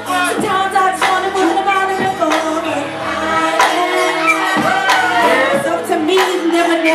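Live hip hop performance: a loud beat with drum hits plays through the club's sound system while a vocal on the microphone carries a sung, gliding melody line over it.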